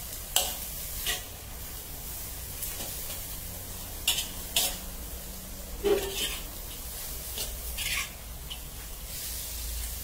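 Metal spatula scraping against a steel wok as bean sprouts and egg are stir-fried, with a steady sizzle underneath. About six sharp scrapes come at uneven intervals.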